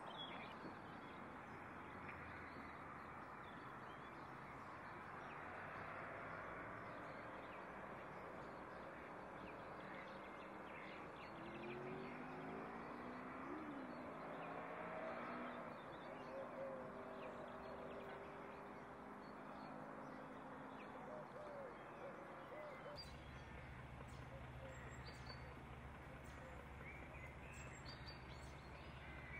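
Faint waterside ambience with a steady background hiss and scattered bird calls; a low steady hum starts suddenly about three-quarters of the way through.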